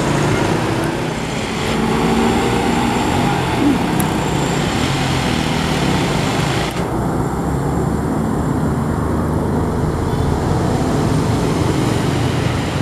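Vehicle engines running and road traffic passing, a steady low hum with road noise; the higher hiss drops away abruptly about seven seconds in.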